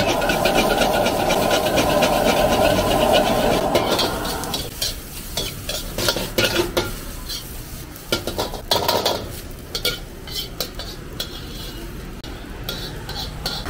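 A metal ladle scrapes and clanks rapidly against a wok as fried rice is stir-fried over the steady rush of a high-flame gas wok burner. About four and a half seconds in, the burner's rush drops away as the flame is turned down, leaving separate ladle scrapes and knocks on the wok over the food frying.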